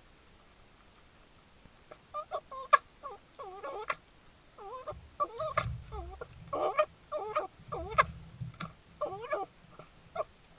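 Red fox giving a rapid series of short, pitched calls that bend up and down in pitch, starting about two seconds in, with a couple of low thuds among them.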